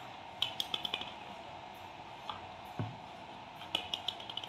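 Light clicks and rattles of a plastic toy truck being handled by a baby monkey, in two quick bursts, with a single soft thump between them.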